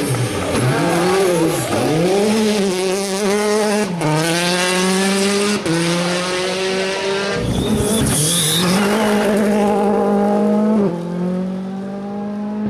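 Rally car engine at full throttle on a gravel stage. The revs swing up and down at first, then climb and drop sharply at each upshift, three times, as the car accelerates away. A short burst of hissy noise comes about two-thirds of the way through.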